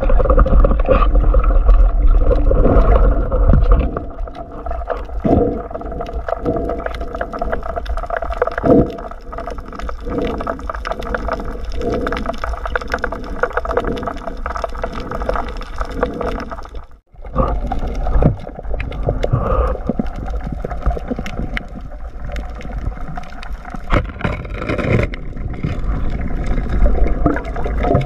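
Underwater sound heard through a camera housing: water gurgling and swishing over a steady hum, with irregular soft knocks, broken once by a brief sudden gap about two-thirds of the way in.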